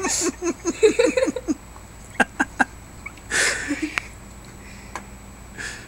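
A person laughing in quick, evenly repeated bursts, which stops about a second and a half in. A few sharp clicks follow, then a breathy burst and a shorter one near the end.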